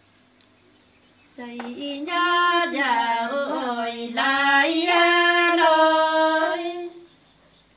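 A woman singing one unaccompanied phrase of a Nùng antiphonal folk song (hát đối đáp) in long, bending held notes. It begins about a second and a half in and stops shortly before the end.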